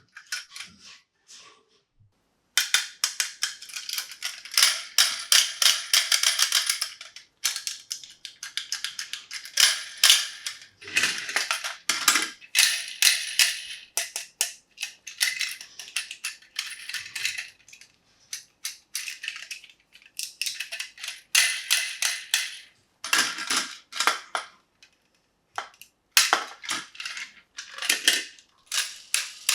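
Rapid clicking and clattering of small toys being handled, in irregular stretches a few seconds long with short pauses between them.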